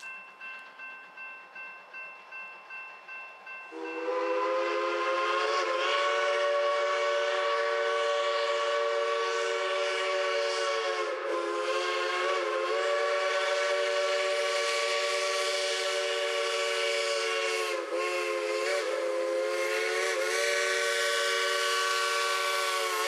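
Polson Logging Co. No. 70 steam locomotive's Ashton six-inch three-chime whistle blowing one long, loud chord that starts about four seconds in, with brief dips in the middle and near the end. Before it, a bell rings quickly, about two and a half strokes a second.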